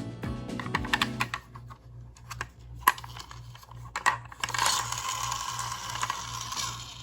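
Toy minicars being handled, with small sharp plastic and metal clicks and clatter, then a steady rolling hiss from about four and a half seconds in as a car is pushed along.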